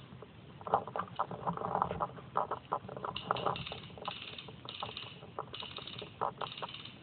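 A quick run of sharp pops from paintball markers firing. Then a regular rustle, a little more than once a second: footsteps in dry leaf litter.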